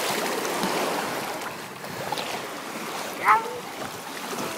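Choppy shallow water washing and splashing in a steady rush, loudest in the first second and a half. A brief high call with a falling pitch cuts through about three seconds in.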